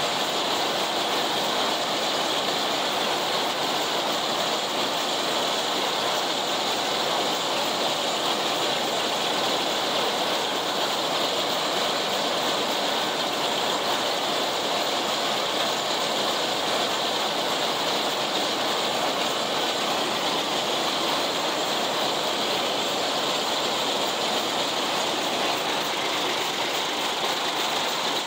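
An International 990 haybine cutting hay behind a John Deere 70 tractor, heard from the operator station: the tractor's engine and the mower-conditioner's cutter and reel make a loud, steady mechanical clatter that never lets up.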